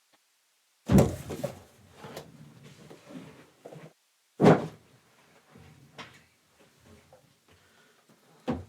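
Sealed cardboard hobby boxes of trading cards being handled and set down: a loud knock about a second in and another about halfway through, each trailing into rustling and small scrapes and clicks.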